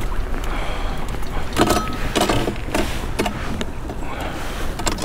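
Steady low wind rumble on the microphone, with a quick run of about five knocks and rattles from gear being handled on a kayak in the middle.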